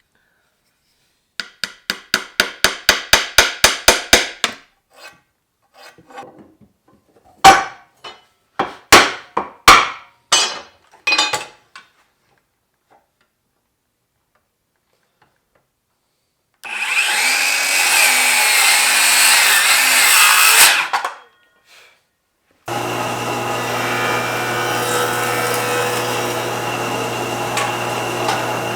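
Hand sanding of a turned cherry plate with 400 grit sandpaper: quick back-and-forth strokes at about five a second, then a handful of slower, harder strokes. In the second half, a longer continuous scratchy rubbing, then a steady noise with a low hum, like a motor running.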